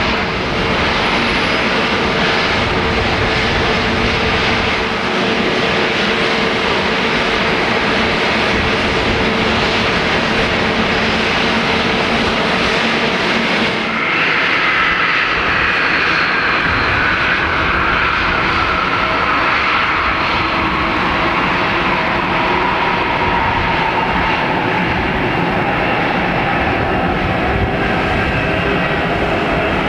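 Airbus A321neo turbofan engines running at idle, a steady rumble with a faint whine. About halfway through, one engine's whine slides steadily down in pitch as it winds down after shutdown.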